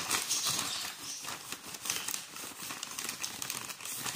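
Plastic delivery bag crinkling and rustling as it is handled and pulled open, a dense run of crackles throughout.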